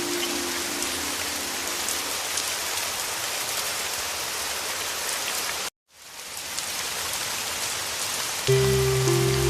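Heavy rain falling steadily as a dense, even hiss; about halfway through it cuts out to silence for a moment and fades back in. Soft sustained music notes fade away in the first two seconds, and a louder, low sustained chord comes in near the end.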